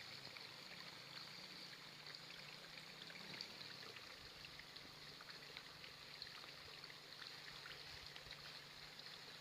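Near silence: a faint, steady trickle of water with scattered tiny ticks.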